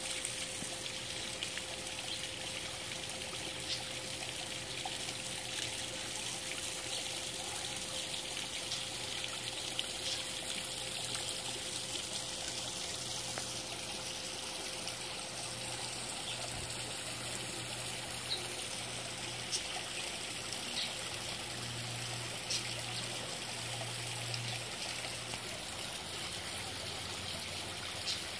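Small rock waterfall trickling and splashing steadily into a garden pond.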